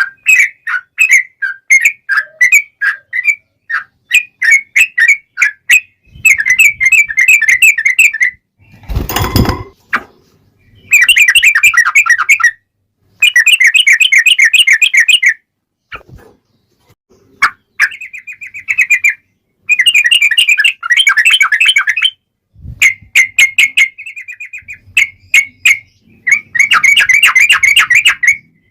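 Yellow-vented bulbul (trucukan) singing in repeated bursts of quick chirps and fast rolling trills, with short pauses between runs. A loud brief rustling thump breaks in about nine seconds in.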